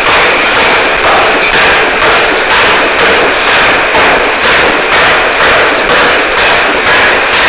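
Air (pneumatic) forging hammer pounding a glowing hot steel workpiece on its anvil: loud, heavy blows in a steady rhythm of about two a second.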